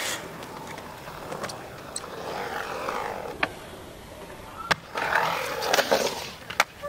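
Skateboard wheels rolling on a concrete skatepark surface, a steady rough rush that grows louder in the second half, broken by a few sharp clacks of the board hitting the concrete.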